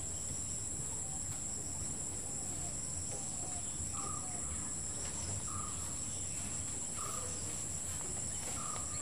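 Crickets trilling in a steady, unbroken high drone. From about four seconds in, a short chirp repeats about every second and a half.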